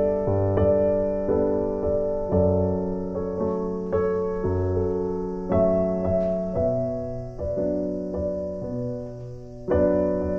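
Gentle piano background music, with notes struck one after another and left to fade.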